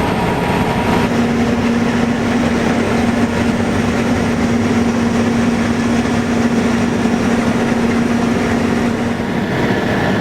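Case combine harvester running steadily while cutting wheat: a loud, even machine noise with a steady low hum that comes in about a second in and fades near the end.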